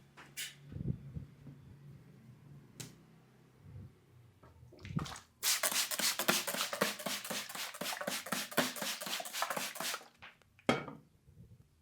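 Rapid, even hand strikes of a percussive head massage, about six or seven a second for some four and a half seconds in the middle, with a few single taps before and one sharp knock after.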